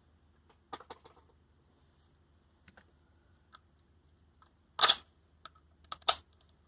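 Scattered clicks and knocks of metal hand tools being handled on a steel bench, with two sharp clacks near the end, the first about five seconds in.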